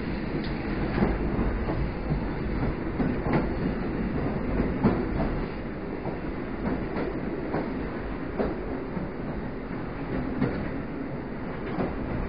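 EN57 electric multiple unit running along the line: a steady rumble with irregular clacks of the wheels over rail joints, a little quieter in the second half.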